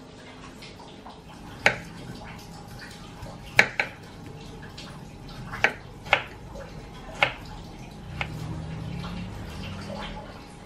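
A knife knocking on a wooden cutting board while potatoes are sliced: about six sharp, separate knocks at uneven intervals.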